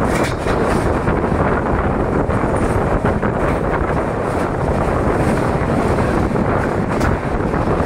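Express train running at speed: a loud, steady rumble of wheels on rails, with wind buffeting the microphone.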